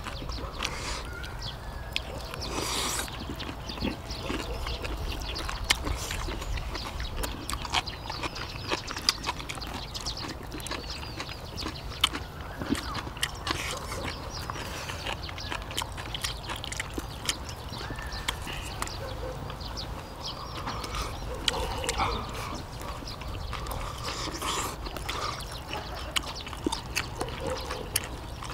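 People eating braised kimchi and rice: chewing and mouth sounds, with many sharp clicks of spoons and chopsticks against bowls scattered throughout.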